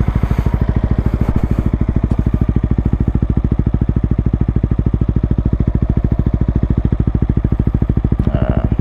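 Yamaha R15 V3's 155 cc single-cylinder engine idling steadily through a gutted ("kalkal") muffler, with an even pulse from the exhaust. The note is quiet but deep.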